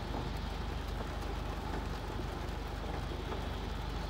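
Rain falling on a car, heard as a steady wash of noise with scattered faint drop ticks over a low steady hum.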